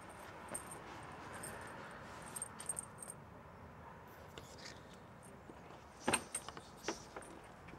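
Faint light metallic clinks and jingling, a cluster of them about two and a half to three seconds in, then a sharper click about six seconds in, over a quiet background.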